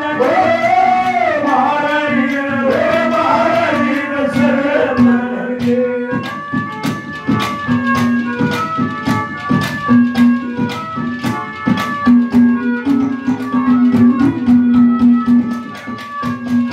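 Live Haryanvi ragni music: a male singer's sung line over a steady harmonium drone for about the first six seconds, then the harmonium carries the tune alone while drum strokes and jingling percussion keep a quick beat.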